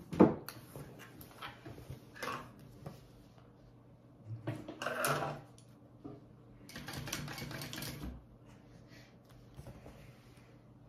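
Kingmax GC0302 industrial sewing machine top-stitching vinyl in short runs, the longest lasting about a second and a half past the middle. Between runs there are clicks and rustles from the work being handled, with a sharp click at the very start.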